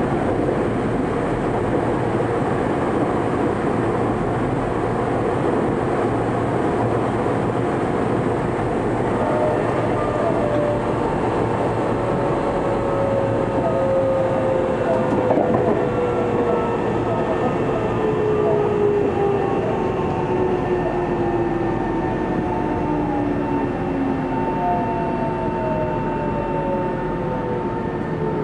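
Tokyo Metro 03 series train heard from inside the car: steady rolling noise of the wheels on the rails. From about ten seconds in, several whining tones from the chopper-controlled traction motors slide steadily down in pitch as the train slows toward a station.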